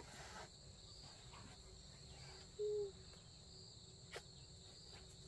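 Faint, steady high-pitched trilling of insects such as crickets. A short low-pitched tone sounds about two and a half seconds in, and a single sharp click comes a little after four seconds.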